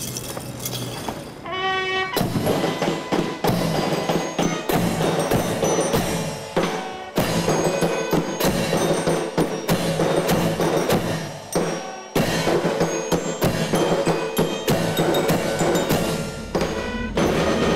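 A military band plays, with bugle and brass over bass drums and crashing cymbals. A short rising run of notes comes first, and the full band comes in about two seconds in.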